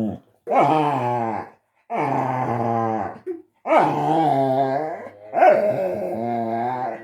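A dog whinging: a run of long, drawn-out grumbling whines, about four in a row, each a second or more long with short breaks between.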